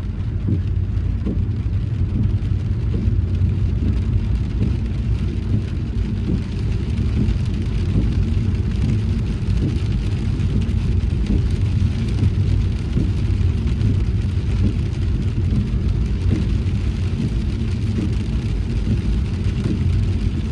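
Car driving in rain: a steady low rumble of tyres and engine, with rain pattering through it.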